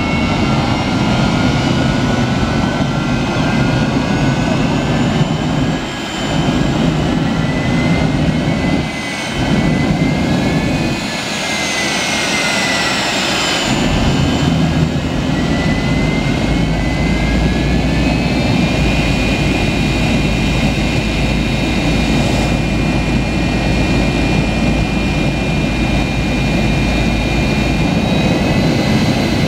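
Bone Shaker jet semi truck's jet engine running, its whine climbing, dipping back down midway, then rising again and holding steady at a high pitch over a heavy rumble for the second half.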